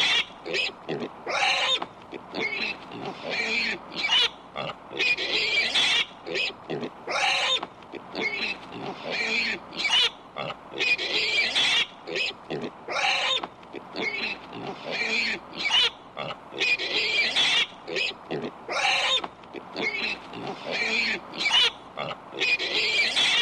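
Pig grunting and squealing, a steady run of short calls one after another at irregular intervals, many of them high-pitched squeals.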